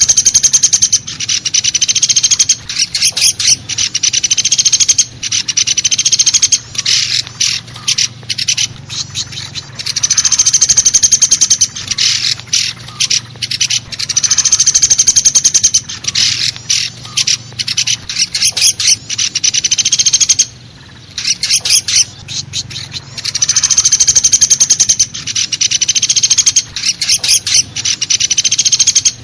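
Recorded call of the pelatuk besi woodpecker, played as a bird-catcher's lure: fast rattling trills of high, evenly repeated notes, each run lasting one to two seconds, with short clusters of sharp single notes between them. It repeats over and over, with one brief pause about two-thirds of the way through.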